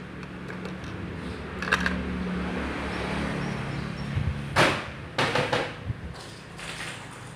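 Canon imageRUNNER Advance 6275 photocopier: a low motor hum with several sharp clicks and knocks of its parts, the loudest a little past halfway.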